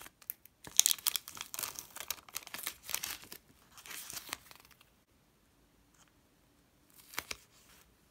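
Tape-laminated paper cutouts crinkling and crackling as they are handled and stuck together, a quick run of crackles for about four seconds. Then quieter handling, with one sharp crackle near the end.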